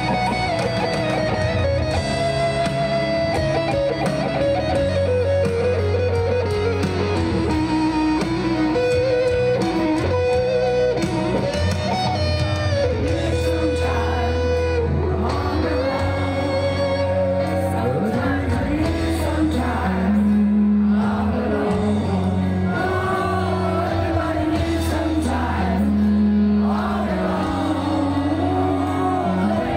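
Live rock band with an electric guitar solo on a Les Paul, long sustained, bent notes over steady bass and piano. Singing comes in about two-thirds of the way through.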